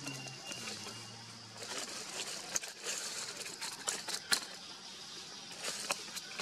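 Outdoor ambience: a steady high hiss with a few sharp clicks and taps, mostly in the middle and near the end, and a low hum that stops about a second and a half in.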